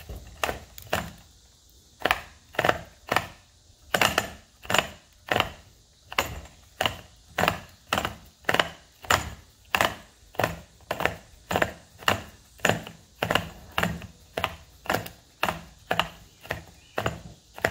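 Echo Speed Feed string-trimmer head clicking as its top ring is turned clockwise by hand, winding trimmer line onto the spool: a steady run of sharp clicks, about two a second.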